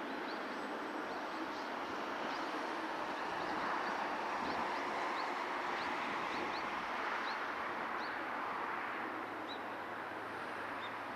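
Boeing 777-300ER's GE90-115B turbofans at low taxi power, a steady rushing whine that swells a little midway and eases near the end. Short, high rising bird chirps come in over it throughout.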